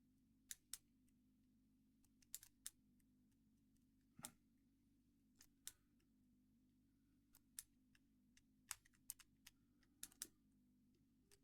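Faint, irregular small clicks of a Squire CP50 combination padlock's numbered wheels being turned and pushed to feel for play in each wheel. A faint low hum runs underneath.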